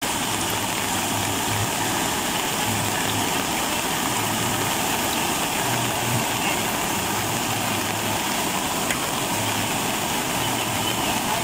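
Steady rushing wash of brown floodwater flowing across a road, with a faint low hum coming and going underneath.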